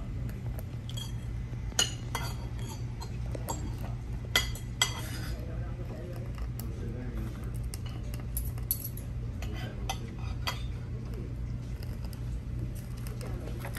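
Cutlery and dishes clinking at a dining table: scattered sharp clinks, the loudest a little under 2 s in and two close together about 4.5 s in, over a steady low hum.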